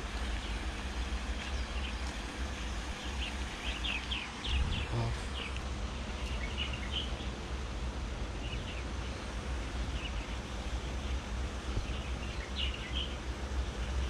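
Steady outdoor background noise with a low rumble, dotted with scattered short bird chirps.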